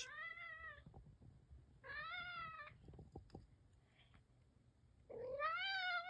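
Black-and-white domestic cat meowing three times, each call just under a second long, the last one rising and then falling in pitch.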